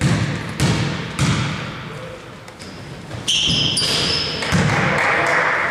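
A basketball being dribbled on a hard court, three sharp bounces about 0.6 s apart near the start. Short high squeaks come in the middle, and a rush of noise comes near the end.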